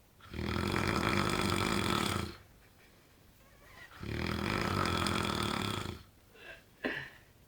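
A man snoring loudly: two long, rattling snores, each about two seconds, with quiet gaps for breath between them, then a couple of brief short sounds near the end.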